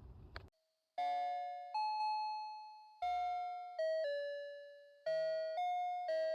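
Electronic bell-like chime tones playing a slow melody, each note struck and fading away, clean with no background noise. Before them the outdoor background noise cuts off abruptly about half a second in.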